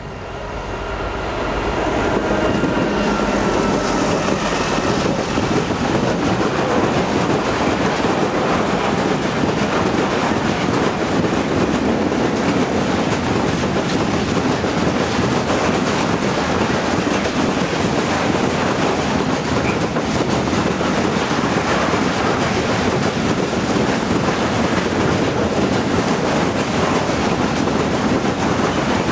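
Loaded freight wagons of a long goods train rolling past close by. A steady, loud rolling noise builds over the first two seconds and then holds.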